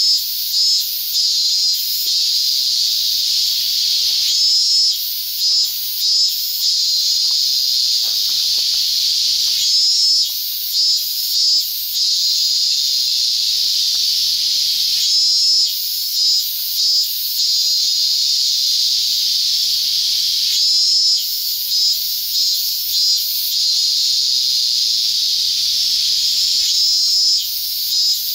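A loud, steady chorus of insects buzzing high-pitched, with short dips every second or so in places.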